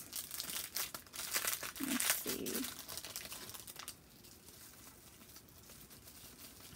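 Small clear plastic jewelry bag crinkling as fingers work it open, dense crackles for about four seconds, then dying down to quiet handling.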